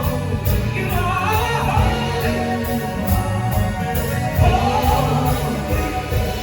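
Live gospel-style music: singing over instrumental accompaniment.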